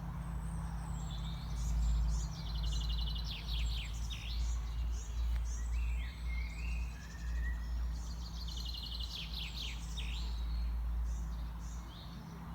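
Several small songbirds singing, with quick trills and short sweeping notes, over a steady low rumble.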